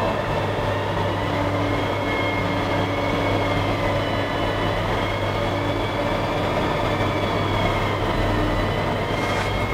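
A steady hum with a faint whine that wavers slightly in pitch.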